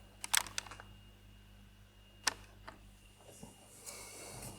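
A few light clicks and taps of small plastic model-kit parts being handled and set down on a table: a quick cluster near the start and a single click a little past two seconds, with a faint rustle near the end.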